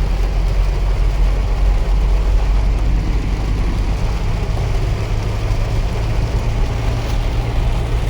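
Car driving on a wet road, heard from inside the cabin: a steady low rumble of engine and tyres under an even hiss of rain.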